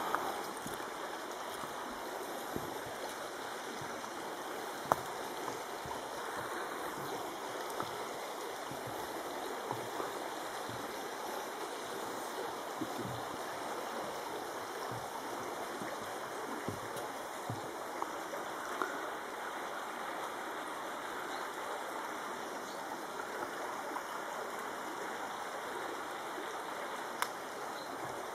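A shallow river runs over stones with a steady rushing babble. A few short sharp clicks stand out above it, the loudest about five seconds in.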